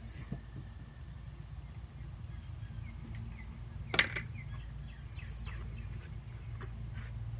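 A single sharp metallic clank about four seconds in from the steel lid of a Weber Smokey Mountain charcoal smoker being seated, over a steady low hum.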